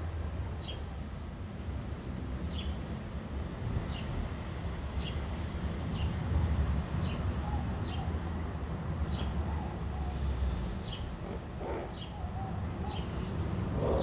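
A bird chirping over and over, short high falling chirps about once a second, over a steady low rumble.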